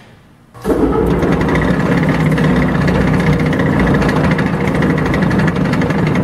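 Coe coil cradle straightener running under power, its drive turning the straightening rolls: a steady low machine hum with a fine, fast rattle. It comes in abruptly under a second in.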